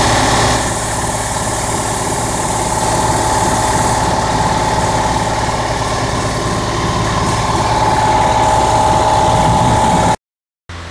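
A machine running steadily with a strong, slightly wavering whine, cutting off suddenly near the end.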